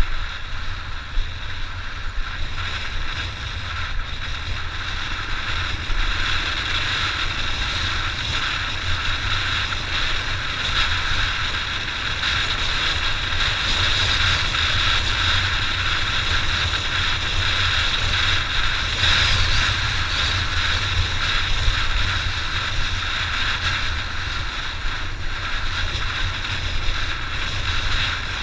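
Honda XR600 enduro motorcycle being ridden, its air-cooled single-cylinder four-stroke engine running steadily under wind noise on the microphone.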